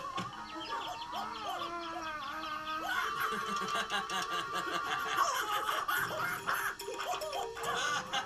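Cartoon soundtrack of background music with a character snickering and giggling, heard through a television's speaker.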